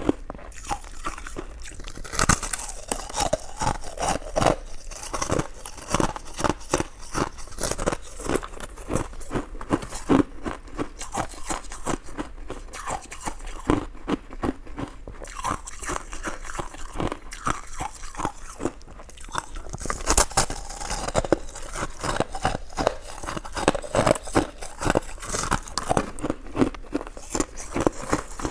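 A person chewing sticky rice dessert close to the microphone: a steady run of wet mouth smacks and clicks, several a second.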